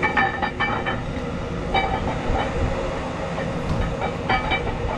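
Steel camshaft clinking against the cam bearings and block as it is turned and slid out of a diesel engine, a handful of short metallic knocks that each ring with the same tone, over a steady low rumble.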